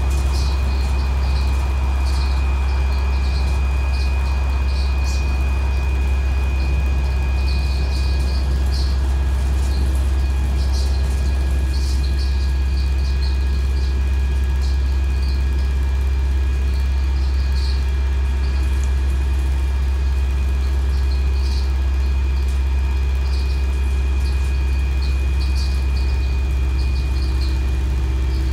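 Inside a MAN 18.240 single-deck bus with a Cummins ISBe 6.7 diesel, cruising steadily at speed: a deep, steady drone of engine and road noise with a steady high whine over it, and short high squeaks and ticks scattered throughout.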